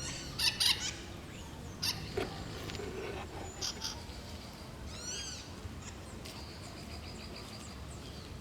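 Wild birds calling: a few short, harsh squawks in the first four seconds, then high arching chirps about five seconds in, over a steady low background rumble.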